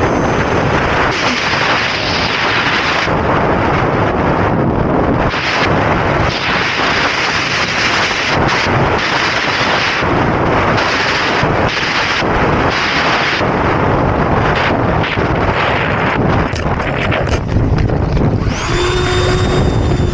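Wind rushing over an onboard camera on an E-flite Habu STS jet, with the thin whine of its 70mm electric ducted fan, as the model flies low and lands. Near the end come several knocks and scrapes as it touches down and slides through grass, then the fan's whine rings out clearly.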